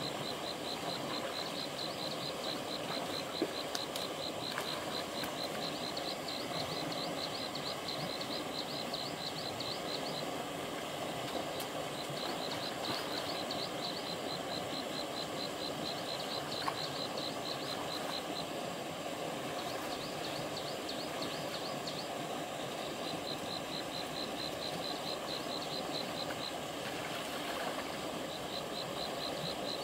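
Shallow stream water flowing steadily over the stream bed, with a high, rapidly pulsing animal call coming in runs of a few seconds with short breaks.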